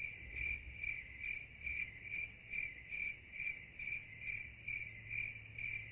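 Cricket chirping: a steady high trill pulsing about two or three times a second, starting and stopping abruptly like an inserted sound effect.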